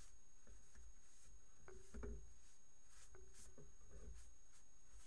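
Cloth rag wiping oil off the metal blades of a pair of hand clippers: faint, intermittent rubbing strokes, a little louder about two seconds in.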